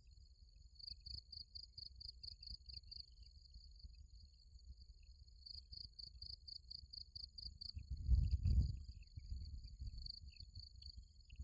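Insects chirping: a high, rapid pulsed trill at about five pulses a second, in two runs of roughly two seconds each, over a steady high insect whine. A low rumble runs underneath and swells louder for about a second, about eight seconds in.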